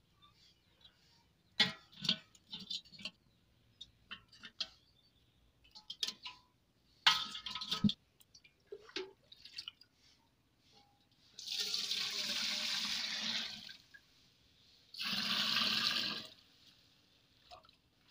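Liquid poured from a steel bowl, twice: a pour of about two and a half seconds, then a shorter one a second later. Before the pours, scattered light knocks and clinks of thin sticks and steel utensils.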